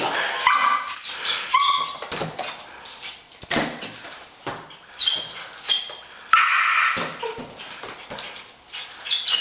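Miniature long-haired dachshund puppy whining and yipping in short high-pitched calls while playing with a balloon, with scattered sharp knocks and a short harsh burst about six seconds in.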